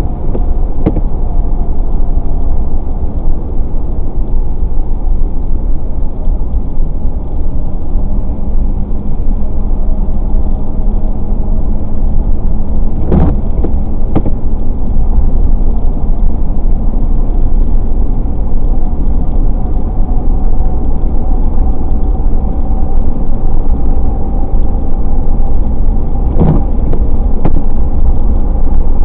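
Steady road and engine noise of a car driving at speed, a low continuous rumble with a faint drone, broken by a few brief knocks.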